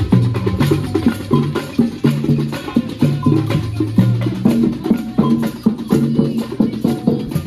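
Music with a steady beat: repeated bass notes and crisp percussion, wood-block-like clicks among them.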